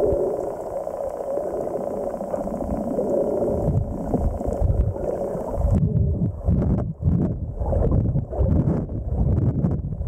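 Water sloshing and gurgling around an underwater camera held at the sea surface. A little over halfway through the sound turns dull and muffled, with irregular low whooshes and thuds of moving water.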